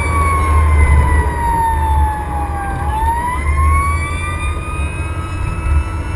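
Fire engine siren wailing: its pitch falls slowly for nearly three seconds, then climbs again, over a steady low rumble.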